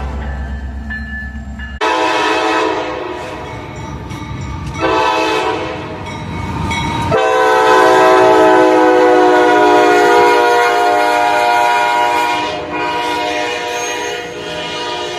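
Train air horn sounding: a blast beginning about two seconds in that swells again around five seconds, then a loud long blast from about seven to twelve seconds whose pitch sags slightly before it trails off.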